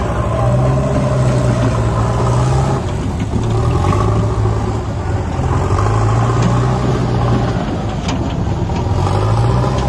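Diesel engines of a JCB backhoe loader and a Powertrac tractor running together at close range. The engine note swells and eases every two to three seconds as the loader works its bucket.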